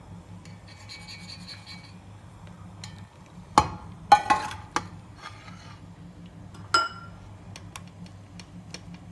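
Steel spoon scraping and pressing tamarind pulp in a small stainless-steel mesh strainer that rests in a ceramic bowl, to squeeze the liquid out. There are sharp clinks of metal on the bowl about three and a half to four and a half seconds in, one ringing clink near seven seconds, and light ticks near the end.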